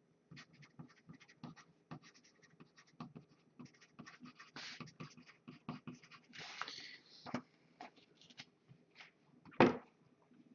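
Typing on a computer keyboard: quiet, irregular key clicks and taps, with a louder click about nine and a half seconds in.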